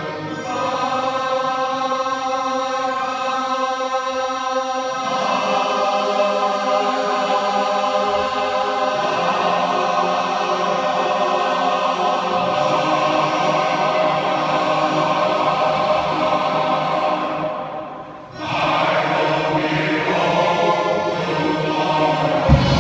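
Men's shanty choir singing long, sustained chords in a large church, with a short break about three-quarters of the way through before the singing resumes. A deep low sound comes in at the very end.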